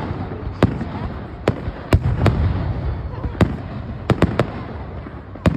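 Aerial fireworks bursting: about nine sharp bangs at uneven intervals, three in quick succession a little past four seconds in, over a continuous low rumble of further bursts.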